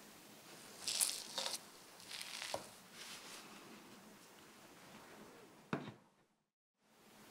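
Crisp rustles and scrapes of skewered bread rolls being handled and rolled in cinnamon sugar on a metal tray, with a sharp click near the middle and a single knock near the end as one is set down on a plate. The sound drops out for a moment shortly before the end.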